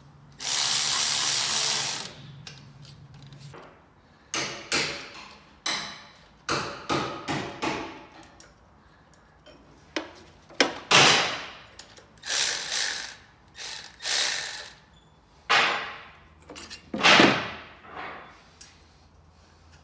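Hand ratchet wrench being worked on bolts in short runs of rapid clicking strokes, with pauses between. A steady hiss lasting about a second and a half comes near the start.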